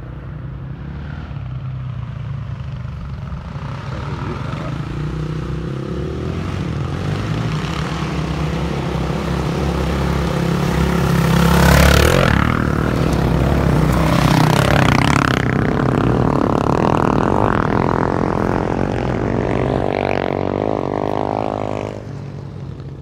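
Two quad bikes' engines revving as the bikes come up a dirt track. The sound builds steadily, is loudest as they pass close about twelve seconds in, keeps going with the pitch rising and falling, and drops off sharply near the end.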